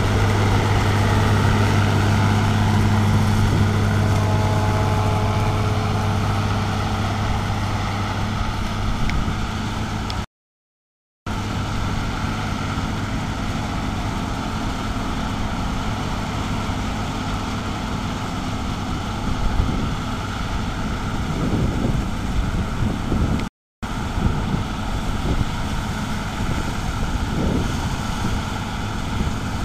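Bizon Z110 combine harvester at work: its diesel engine and threshing machinery make a steady, loud drone with a constant low hum. The sound cuts out twice, once for about a second near the middle and once very briefly later on.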